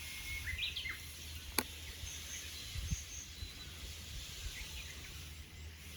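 Outdoor garden ambience: a few short bird chirps over a steady low rumble, with a single sharp click about a second and a half in.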